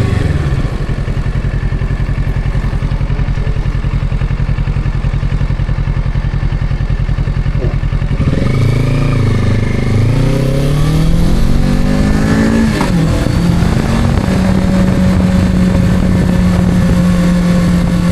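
Kawasaki Z650 with its stock exhaust, a 649 cc parallel-twin, echoing in a tunnel. It runs at a steady low note for about eight seconds, then is revved and accelerates, its pitch rising and falling. It settles to a steady higher note for the last few seconds.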